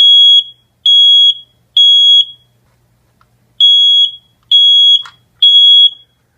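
First Alert smoke detector sounding its test alarm: loud, high-pitched beeps in the temporal-three ("code 3") pattern, three beeps of about half a second each, a pause of about a second and a half, then three more.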